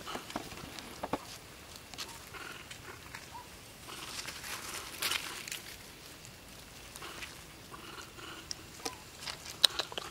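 Macaques moving and foraging in grass and leaf litter: scattered soft rustles and small clicks, with a few faint short chirps and one sharper click near the end.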